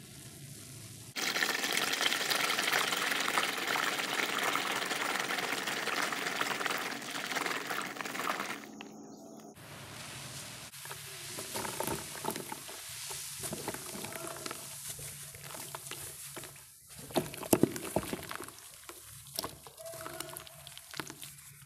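Dry sand-cement lumps crumbling into soapy water, a loud dense steady hiss that cuts off suddenly after about eight seconds. Then quieter gritty crumbling and crackling of dusty sand-cement chunks, with a few louder knocks about three-quarters of the way through.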